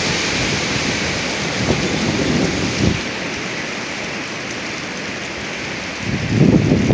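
Strong wind gusts with a steady rushing hiss. Low buffeting on the microphone comes and goes in the first few seconds, eases, then a heavy gust hits the microphone near the end.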